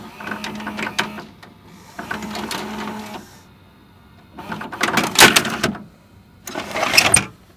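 Videotape recorder mechanism clicking and whirring in four short bursts as the tape is stopped, with a low motor hum under the first two.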